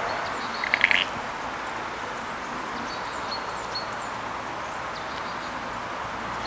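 Steady outdoor noise with faint, scattered high bird chirps, and a short, loud rattling call about a second in.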